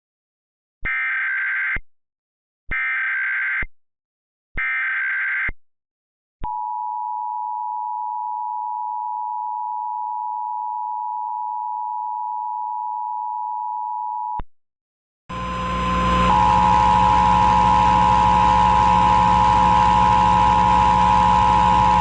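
Emergency Alert System SAME header: three short buzzy digital data bursts about a second each, followed by the EAS two-tone attention signal (853 and 960 Hz) held steady for about eight seconds. After a brief gap, a loud hissing static bed with steady hum and tones comes in and keeps going.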